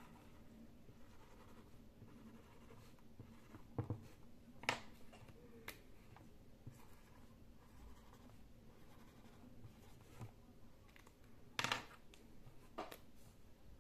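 Faint scratching of a felt-tip pen writing on paper, with a handful of sharp clicks and knocks, the loudest near the end.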